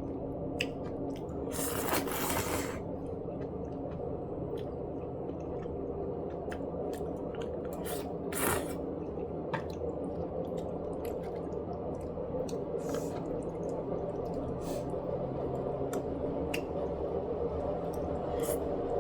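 Close-up eating sounds of braised chicken (jjimdak): wet squishing and chewing with many scattered sharp clicks, and two brief louder scrapes about 2 seconds and 8½ seconds in, over a steady low hum.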